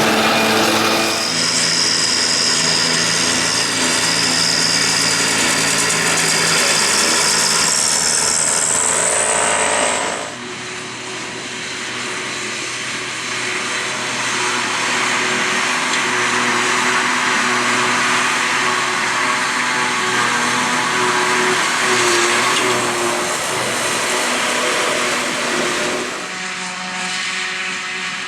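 Farm machinery at work chopping grass for silage: tractor and forage harvester engines running steadily. From about a second in, a high whine holds and then rises just before ten seconds. The sound changes abruptly at about one, ten and twenty-six seconds, as one machine follows another.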